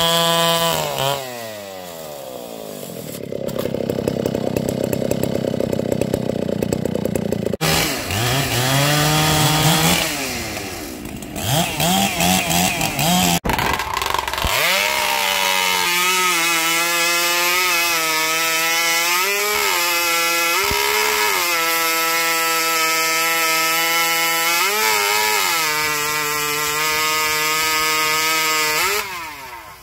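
Two-stroke chainsaws running and revving, in several short stretches: the engine pitch swings up and down in the first half, then holds high and steady with brief dips and recoveries through most of the second half.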